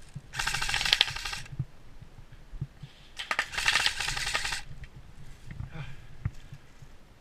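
Airsoft electric gun (AEG) firing two full-auto bursts of rapid clicks, each lasting about a second and a quarter, a couple of seconds apart.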